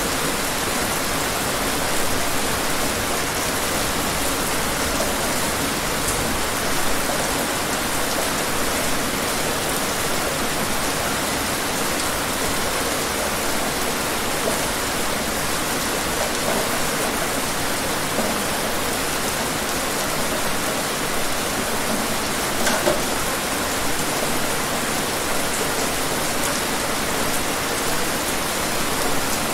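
Steady rain falling: an even hiss, with the odd single drop tick standing out now and then.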